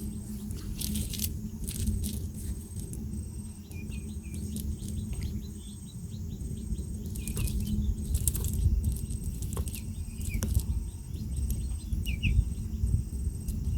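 Forest ambience: a high, evenly pulsing insect call and short bird chirps over a loud low rumble, with scattered sharp clicks.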